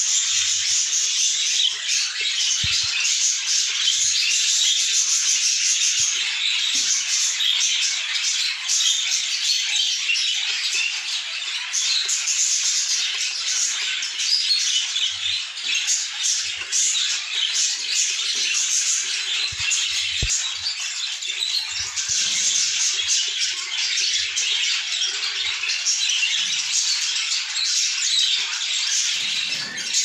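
Budgerigars chattering and chirping all at once, a dense, unbroken din of many small calls. A couple of low bumps, from handling, come in about three seconds in and again around twenty seconds.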